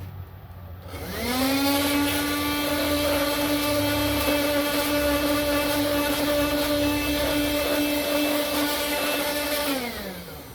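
12-volt car vacuum cleaner run from a PC ATX power supply: its motor spins up with a quickly rising whine about a second in, runs steadily with a whine over airy noise, then winds down near the end as it is switched off.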